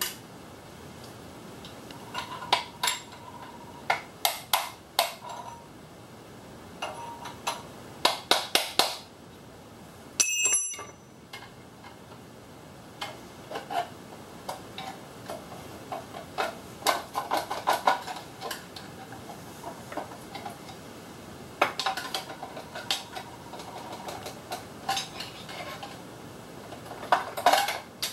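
Metal hand tools clicking and clinking in short runs as the bolts of a Prius engine's transmission damper are undone. About ten seconds in there is one louder, ringing metal clink.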